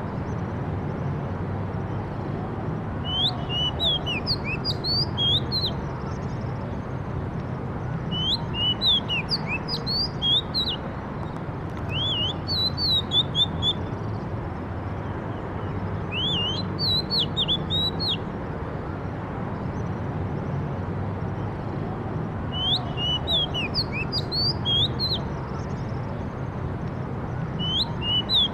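A songbird singing short phrases of quick, high chirping notes that sweep up and down, repeated about six times with pauses of a few seconds between them, over a steady low background hum.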